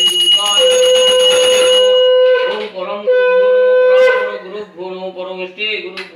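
Conch shell (shankha) blown for puja: one long steady blast that ends a little over two seconds in, then a second shorter blast about three seconds in. A man chanting mantras follows near the end.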